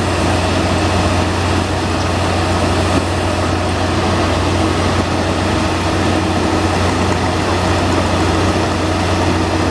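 Diesel engine of a railway track maintenance machine running steadily, a constant low hum with mechanical noise over it.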